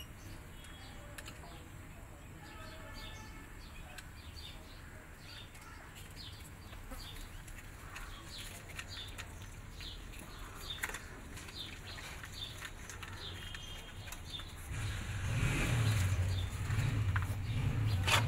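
Cats crunching dry kibble: many small irregular clicks of chewing. A low rumble comes in about fifteen seconds in.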